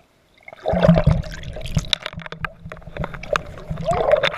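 Water splashing and sloshing close by, full of quick splashy clicks. It starts abruptly about half a second in and stops suddenly at the end.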